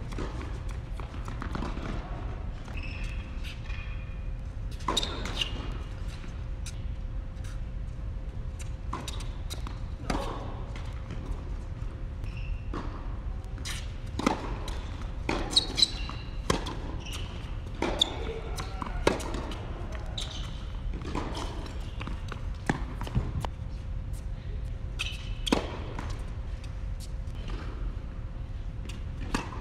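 Tennis balls struck by racquets and bouncing on an indoor hard court, as sharp irregular pops with gaps between points, echoing in the hall. A steady low hum runs beneath.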